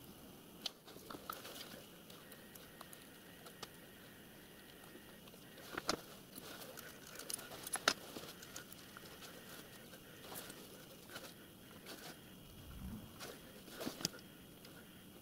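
Faint, scattered clicks and light taps of hands working on metal parts of a miniature steam locomotive's chassis while its axle pump is being fitted, a few sharper clicks among them.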